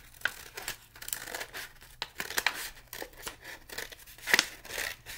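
Scissors cutting through a folded paper plate: a run of uneven snips, the loudest about four seconds in.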